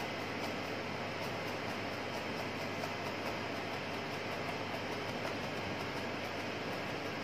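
A steady, even hiss and rumble of kitchen background noise, with faint taps of a knife cutting onion on a cutting board.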